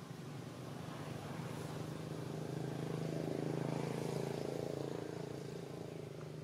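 A motor vehicle's engine humming, growing louder to a peak about three to four seconds in and then fading, as a vehicle passing by would.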